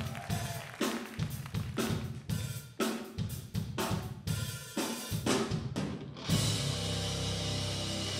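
Rock band's drum kit playing a run of separate hits on snare, bass drum and cymbals. About six seconds in the full band comes in with a loud held chord under ringing cymbals.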